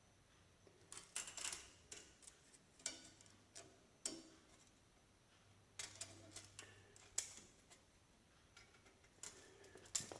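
Faint, scattered light clicks and taps of tools or metal parts being handled, at an uneven pace, over a faint low hum.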